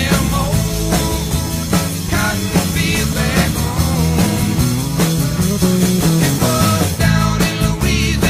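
Rock music with a steady drum beat, laid over the footage, drowning out any road or engine sound.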